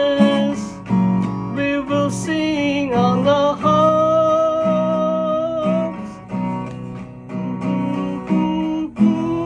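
A man singing to his own acoustic guitar accompaniment, holding one long sung note about halfway through.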